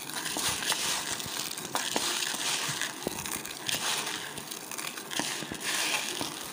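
Dry Maggi instant noodles being crushed by hand into fine crumbs, a continuous crackling crunch that swells with each grinding stroke of the hand.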